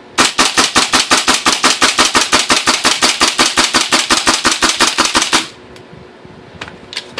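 LM4 airsoft gas blowback rifle firing a full magazine in one fast, evenly spaced string of sharp cracks, about five seconds long, that stops suddenly as the magazine runs dry. This is a function test after the rifle's out-of-spec nozzle was replaced to cure jamming.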